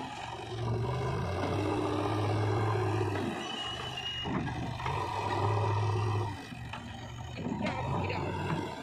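JCB 3DX backhoe loader's diesel engine working under hydraulic load as it raises its loaded front bucket, swelling louder twice and easing back in between. Near the end it drops to a lower, quieter run, with a few short knocks.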